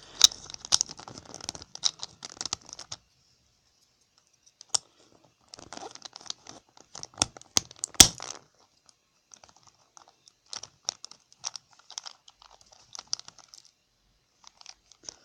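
Plastic Rubik's cube pieces clicking and rattling as they are handled and pressed back into the cube, in runs of quick clicks with a pause of a couple of seconds and one louder click about eight seconds in.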